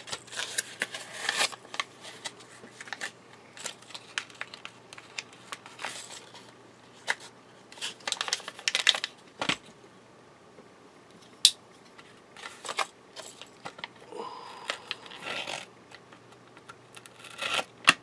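A mechanical pencil's blister package being pried open: its cardboard backing card tearing and the clear plastic crinkling, in scattered bursts of rustling and scraping with sharp clicks, one near the middle standing out.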